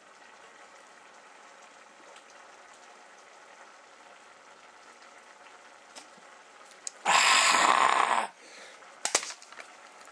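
A faint steady hiss with a small tick about six seconds in, then a loud rushing noise lasting about a second. Near the end comes a sharp knock as an aluminium drink can is struck against the head in a failed attempt to crush it.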